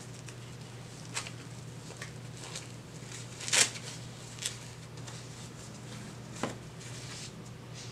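Handling noise from the doll's clothes and diaper: a few short rustles and taps, the loudest about three and a half seconds in, over a steady low electrical hum.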